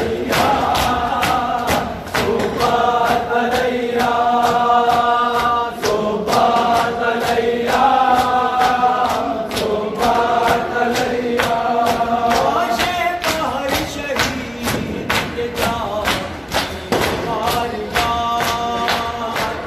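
Group of men chanting a Muharram noha (mourning lament) in unison over rhythmic chest-beating (matam), with sharp hand slaps at about two a second. The sung phrases come and go, with short breaks between them, while the slapping keeps a steady beat.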